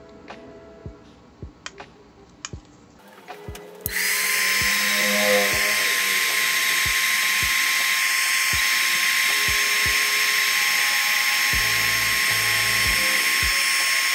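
A small 300 W handheld heat gun is switched on about four seconds in and runs steadily, a loud airy hiss with a thin whine, as it blows hot air over a wet glass to dry it.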